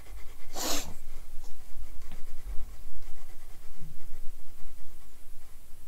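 Stylus rubbing and tapping on a drawing tablet while erasing on-screen handwriting, with a short rushing noise about half a second in.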